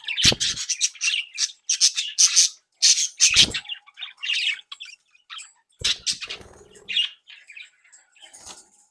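Budgerigars chattering, a run of fast chirps and squawks, with a few thuds. The calls thin out near the end.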